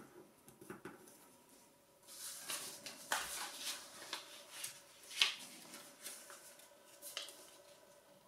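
Sheet of origami paper rustling and crackling as it is handled and folded, starting about two seconds in, with sharper crinkles, the loudest about five seconds in.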